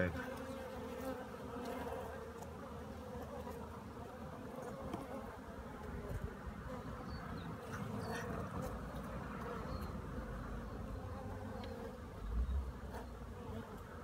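Honeybees on an open hive frame, buzzing in a steady hum, with a brief low rumble near the end.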